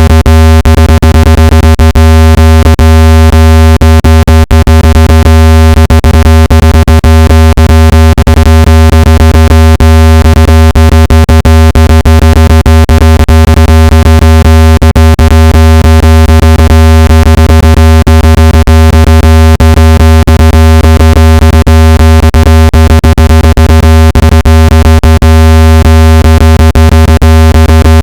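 Synthetic speaker water-ejection tone, a low buzzing pitch with many overtones played at full volume to shake water out of a phone speaker. It holds steady throughout, peppered with rapid clicks.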